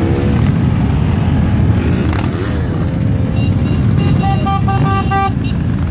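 A column of Harley-Davidson and other cruiser motorcycles passing close by, engines running loud and low. About three seconds in a horn sounds, then gives a quick run of five or so short honks.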